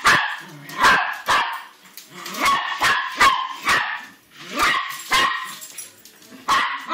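Small dog barking repeatedly at a remote-control toy car, about ten short barks in uneven bursts.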